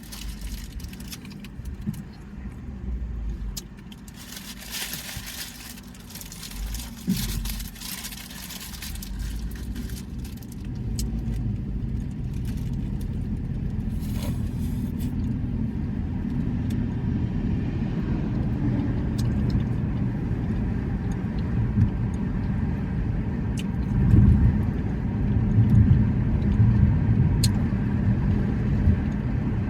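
Steady low rumble of a car, growing louder from about ten seconds in, with a few light clicks and some louder low swells near the end.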